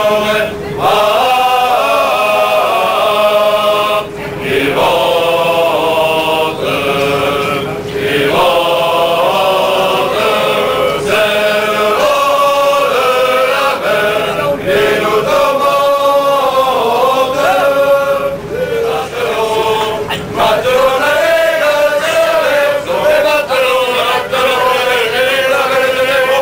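A large group of voices singing a chant together in unison, phrase after phrase, with short breaks between phrases.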